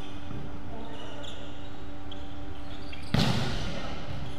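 A volleyball struck hard once, about three seconds in: a single sharp smack that echoes around a large gym hall, over a steady background hum.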